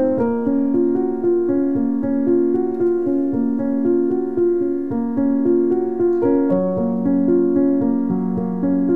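Background piano music: a slow, steady melody of sustained keyboard notes.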